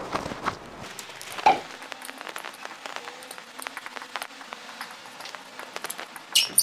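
Felt-tip marker writing on a paper flip chart: scattered scratchy ticks and squeaks of the tip across the paper, with a sharper scratch near the end.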